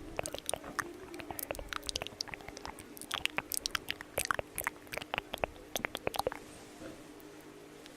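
Close-miked sticky, crackling clicks of fingers working sunscreen lotion, coming irregularly, thickest in the middle and thinning out near the end.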